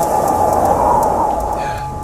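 Storm wind gusting hard through aspen and pine trees: a loud, steady rushing roar with a steady high tone running through it.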